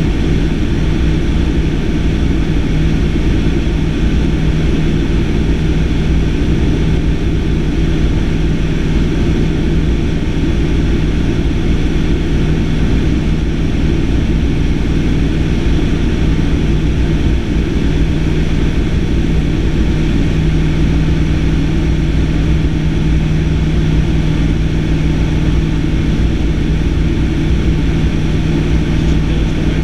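Single-engine light aircraft's engine and propeller droning steadily in flight, heard from inside the cockpit, with a strong low hum and no change in pitch.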